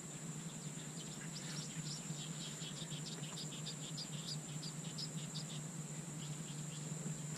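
A steady high-pitched insect drone with many short, high chirps scattered through it, over a low steady hum.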